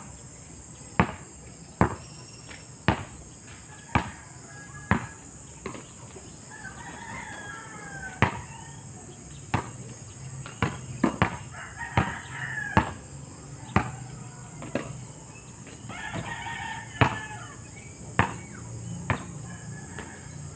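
A basketball dribbled on an asphalt court, bouncing about once a second with a quick run of bounces near the middle. Roosters crow in the background several times.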